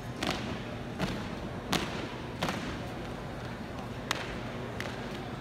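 Unarmed exhibition drill platoon's sharp claps and stomps, about six crisp hits at an uneven pace, the loudest about a third of the way in.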